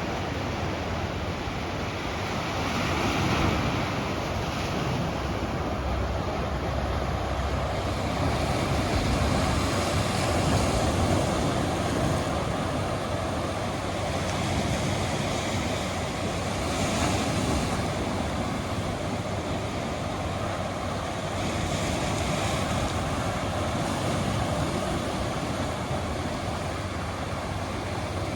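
Surf washing in: a steady rushing that swells and eases every few seconds.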